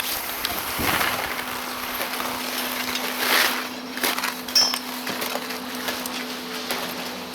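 Skis scraping and swishing over packed snow, with two louder swishes and a short click, over wind noise buffeting the action camera's microphone and a faint steady hum.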